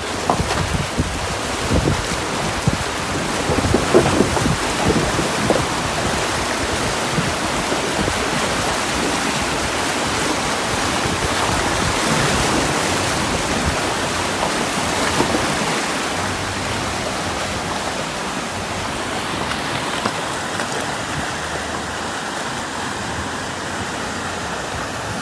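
Fast river water rushing and splashing around a 4x4 as it wades through the current, a steady loud wash with a few knocks in the first seconds.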